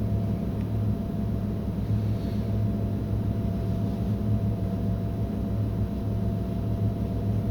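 Steady low machine hum, unchanging throughout, with a faint steady higher tone above it.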